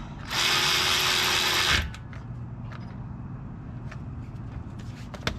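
A power tool spins a brake caliper bolt down for about a second and a half, in one steady burst that stops abruptly. A few light metallic clicks follow.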